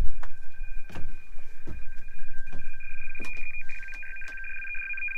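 Icom shortwave transceiver tuned to 11.175 MHz upper sideband, its speaker giving two steady high tones over a hiss. The hiss grows louder after about three and a half seconds. A few sharp clicks and knocks sound over it.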